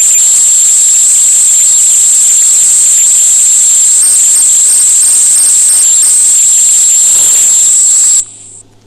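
A loud, steady, high-pitched whine over hiss, which cuts off suddenly just before the end.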